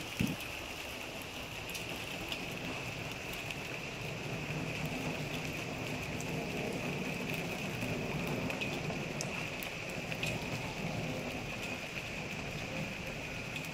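Steady rain falling, an even hiss with scattered sharper drips. A single soft thump comes just at the start.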